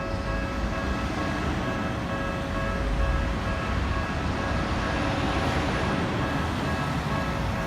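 Level crossing warning bell ringing in steady repeated strokes, partly drowned for a few seconds near the middle by the louder low rumble of a passing vehicle.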